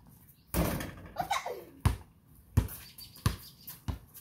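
A basketball shot striking the portable hoop about half a second in, a louder impact that fades over about a second. Then the ball bounces on a concrete driveway four times, about 0.7 s apart.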